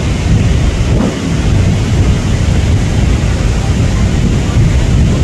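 Loud, steady low rumbling noise with no rhythm or pitch.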